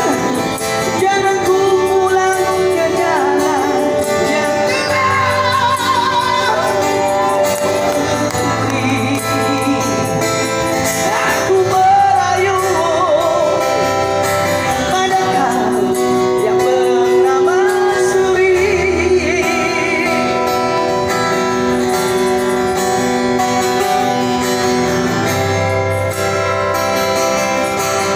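Live band music from street buskers: a wavering lead melody over sustained chords and a steady bass line.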